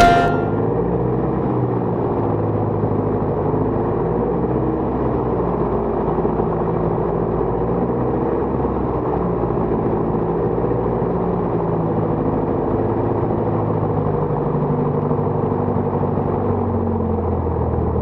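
Piper PA-28 light aircraft's piston engine and propeller running steadily at low power while taxiing, heard from inside the cabin, its pitch wavering slightly.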